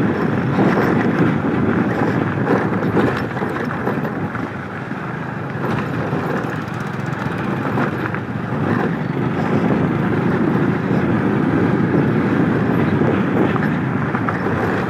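Motorcycle running as it is ridden slowly over a rough off-road dirt track: a steady, dense engine and ride noise that dips slightly about four seconds in.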